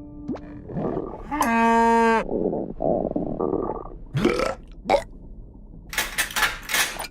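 Cartoon shark burping after eating: one loud, drawn-out pitched burp about a second and a half in, followed by shorter rough noises and several sharp bursts of sound effects.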